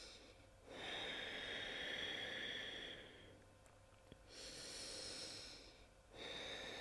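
A person's slow, deep breathing, faint: three long breaths drawn in and out, each about two seconds, held through a yoga pose.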